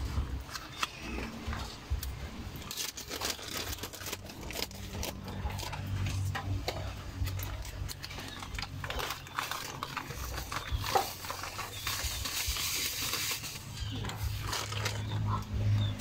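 Irregular crinkling and crackling: a plastic bag of sugar being handled, and a wood cooking fire crackling under a wok of coconut milk, over a low steady hum.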